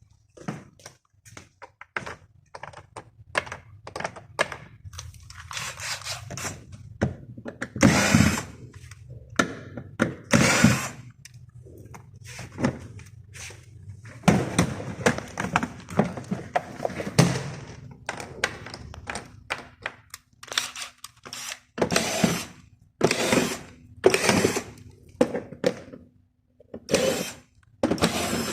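Repair work on a door lock: irregular metal clicks, knocks and scraping from the lock and hand tools, with a low steady hum for most of the first two-thirds.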